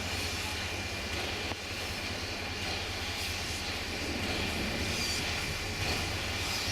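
Alco-built 2-8-0 steam locomotive running: a steady low rumble with hiss, with no separate exhaust beats standing out.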